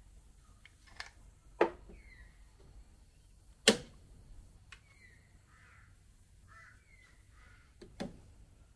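Rain falling, with a few sharp drip strikes close by, the loudest about a third of the way in. Birds call in short, falling notes.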